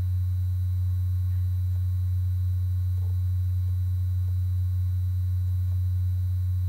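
Steady low electrical hum, a constant drone, with nothing else audible over it.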